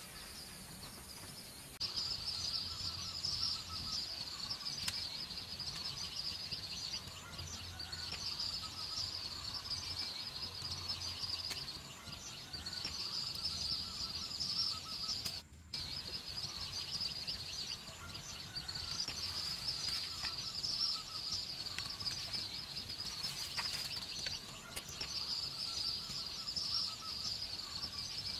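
Rural outdoor ambience: a dense, high chirping chorus coming in bouts of a few seconds, starting about two seconds in, with a brief break near the middle.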